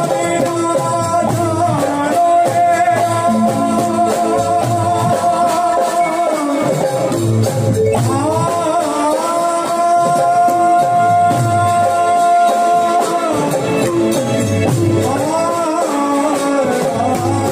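Live Gujarati devotional raas kirtan music: a melody holding two long notes, one starting about two seconds in and the next about eight seconds in, over a steady drum beat with jingling shaker-like percussion.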